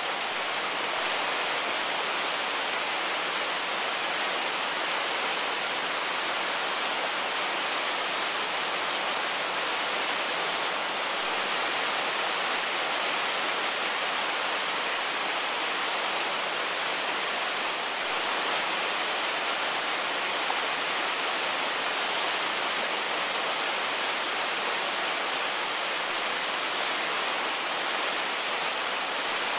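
River white-water rapids rushing over boulders in a steady, full hiss.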